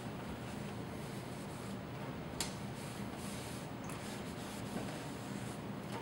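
Cloth rag rubbing against the faucet's chrome base and brass cartridge housing, with one sharp click about two and a half seconds in.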